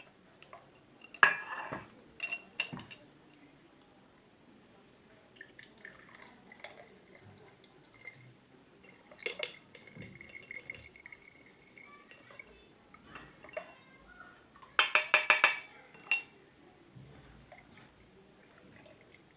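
Utensils clinking against glassware and a pot while handling and straining hot spiced milk: scattered single clinks, then near the end a quick run of about six sharp taps, the loudest sound here.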